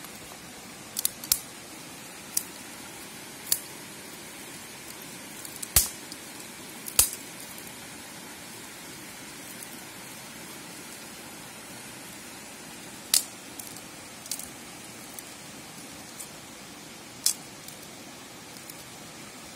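Dry sticks snapping by hand: about ten sharp, separate cracks at uneven intervals, the loudest a pair about six and seven seconds in. Under them runs the steady rush of a shallow stream.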